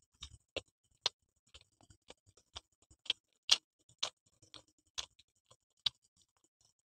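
Close-miked eating sounds: sharp, irregular clicks and crunches of people chewing pizza, about one or two a second, with wet mouth smacks.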